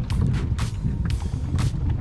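Low, steady rumble of wind buffeting the microphone, with background music keeping a steady beat of about two strikes a second.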